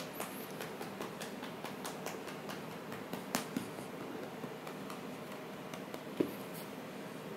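A hand patting and stroking a cat's fur, giving irregular light clicks and soft rustles, with one sharper knock about six seconds in.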